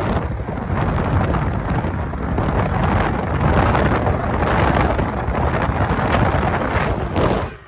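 Wind buffeting the microphone at the open window of a moving car, a loud unsteady rush with a heavy low rumble of air and road noise. It cuts off suddenly near the end.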